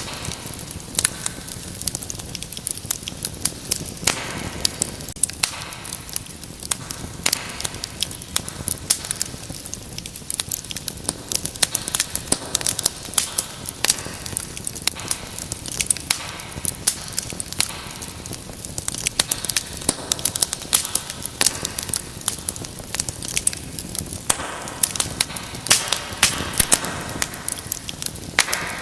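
Wood fire burning in a fireplace, with a steady soft rush of flame and many sharp crackles and pops scattered irregularly throughout.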